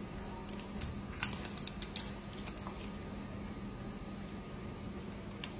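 Faint, scattered clicks and crackles of red onion skin being peeled off by fingers, over a low steady hum.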